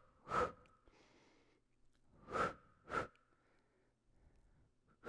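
A woman's sharp, forceful exhales in pairs, timed to the double heel pulse of the Pilates single leg kick: one just after the start, a pair about halfway through, and another at the very end.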